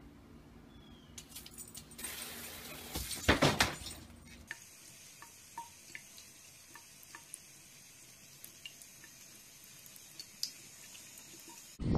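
A bathroom faucet running a thin stream into a sink, with scattered faint small ticks and drips, as a cat drinks from it. Before it, about three seconds in, a short loud burst of noise.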